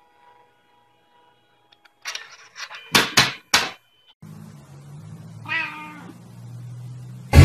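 A few short, sharp noises in quick succession, then a single cat's meow falling in pitch over a low hum, about two seconds before loud music comes in at the very end.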